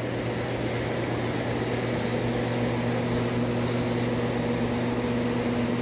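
A steady mechanical hum over an even background hiss, with a low, constant drone; a second, slightly higher tone joins about two seconds in.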